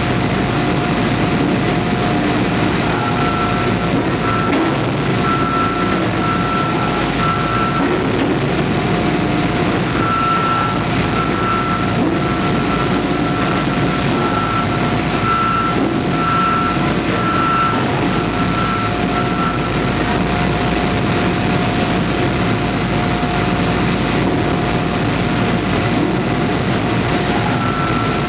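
Heavy hydraulic forging press and its drive running steadily: an even, loud machine noise with a constant whine. A higher tone sounds in short repeated pulses through much of the first two thirds and again near the end.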